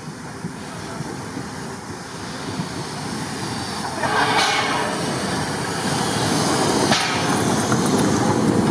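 Narrow-gauge steam tank locomotive 99 1782-4 rolling up and passing close by, its running noise growing steadily louder. A burst of steam hiss comes from around the cylinders about four seconds in, and a shorter one about seven seconds in.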